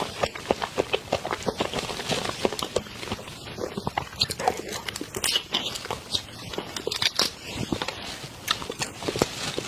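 Large whole prawns being peeled by hand close to a clip-on microphone: a dense run of crackles and clicks as the shells crack and tear, mixed with wet biting and chewing as the prawns are eaten.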